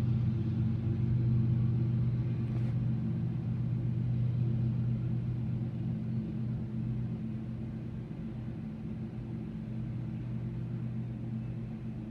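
Diesel locomotive engine running with a steady low rumble, slowly fading in the second half.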